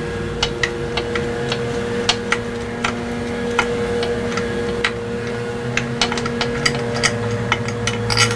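Light, irregular metallic clicks from a socket and extension turning out a 12 mm bolt on an outboard's lower unit, over a steady hum.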